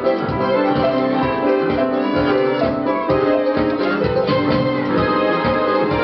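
Two small children playing a duet on an electronic keyboard, melody and chords in a piano voice over a steady, evenly spaced bass beat.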